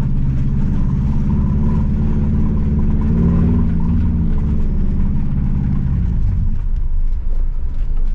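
Subaru Forester XT's turbocharged EJ25 flat-four running while the car drives, rough and misfiring: the engine is failing, with a blown turbo and a bad rod bearing. About six seconds in, the steady engine note drops away to a rougher low rumble.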